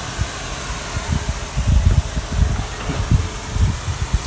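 A hand-held spray wand misting a cleaning solution onto brick steps as a pre-soak, a steady hiss of spray. Irregular low rumbles come in from about a second and a half in.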